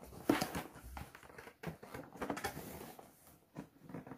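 Cardboard product box being handled and opened by hand: irregular rustling and scraping of cardboard with scattered knocks and clicks, the sharpest knock near the start.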